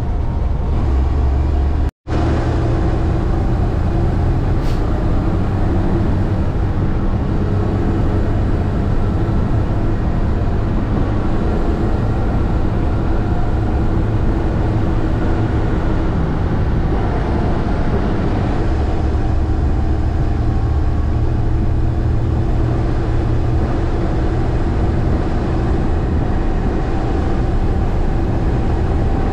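International 4900 bucket truck's diesel engine running steadily on the road, a continuous low rumble, with a momentary break in the sound about two seconds in.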